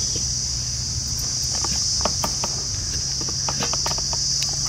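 Crickets chirring in a continuous high drone, with a scatter of light clicks and taps from about a second and a half in.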